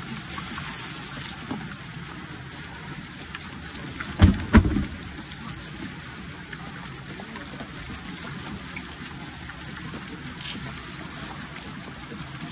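Live shrimp tipped from a plastic crate splash into a water-filled barrel, then a steady, rain-like crackle and splashing of the packed shrimp at the water's surface. Two dull thumps come about four seconds in.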